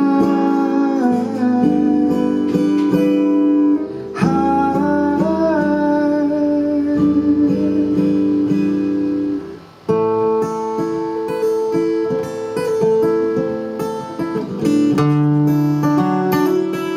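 Acoustic guitar accompanying a singer who holds long notes on 'fly' and then 'high'. After that the guitar plays on alone, with a brief drop in level and a change to a new chord pattern near ten seconds in.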